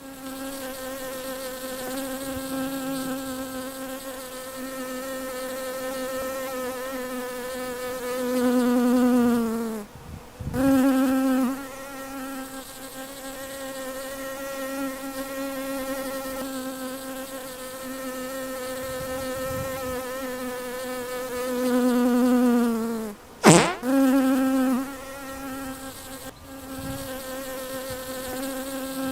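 Bee buzzing as a steady, pitched drone. Twice, about a third and about three quarters of the way through, the buzz swells louder and its pitch sags before it breaks off for a moment and resumes. There is a sharp, brief sweeping sound at the second break.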